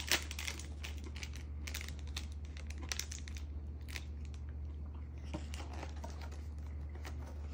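Plastic wrapper of a Kind nut bar crinkling as it is handled, a scatter of small crackles that is thickest in the first few seconds and thins out after, over a steady low hum.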